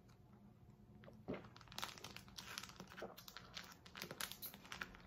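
Foil drink pouch crinkling in the hands as it is squeezed and drunk from: faint, irregular crackles starting about a second in.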